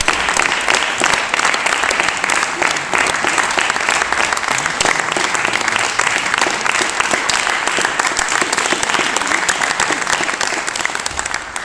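Theatre audience applauding, a dense steady clapping of many hands.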